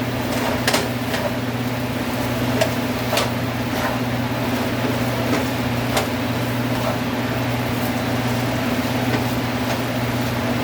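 Eggs and vegetables frying in a pan, a steady sizzle with scattered small pops and ticks, over a steady low hum.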